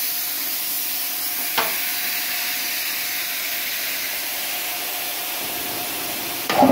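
Steady hiss with a faint steady tone and a single click about one and a half seconds in. Just before the end, the 1 HP twin-cylinder belt-driven air compressor switches on and starts running, much louder than the hiss.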